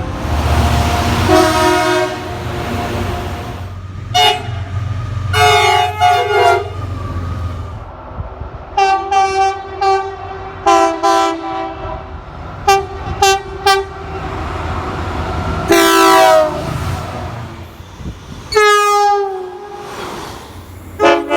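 Train horns sounding a string of blasts, some long and some short toots, each sounding several notes at once as a chord. A low engine rumble runs underneath for the first several seconds.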